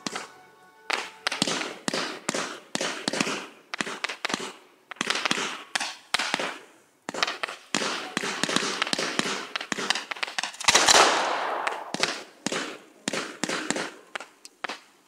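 Ground-launched fireworks firing shot after shot in quick succession, each launch followed by popping and crackling bursts, with brief pauses between volleys. The densest, loudest volley comes about eleven seconds in.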